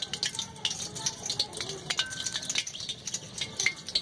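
Hot ghee crackling and spitting in an iron kadai around a battered potato pakora as it deep-fries, in quick irregular pops, with a hand working the gram-flour batter in a plastic bowl.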